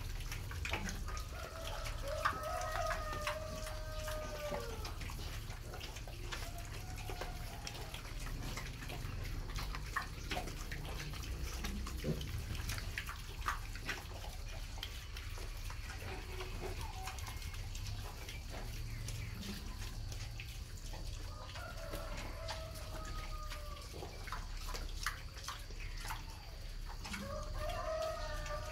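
A rooster crows a few times, most clearly about two seconds in and again near the end, each crow long and drooping at its close. Underneath is a steady patter of wet clicks and shuffling from a group of piglets feeding in a concrete pen.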